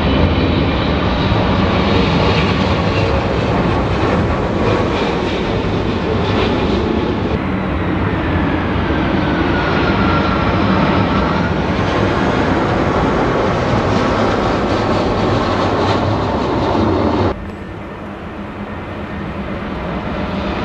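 Jet airliners on final approach passing low overhead with their engines running, in three clips: a Boeing 777-300ER, then a four-engined Airbus A340-300 with a faint whine that dips and rises, then an Airbus A320neo. The A320neo comes in much quieter about three-quarters of the way through and swells as it nears.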